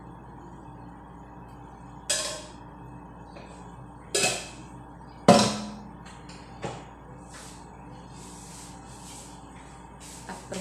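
Kitchen clatter: a handful of sharp knocks and clanks as cookware and plastic food containers are set down and handled, the loudest about five seconds in with a short metallic ring, then softer handling sounds. A steady low hum runs underneath.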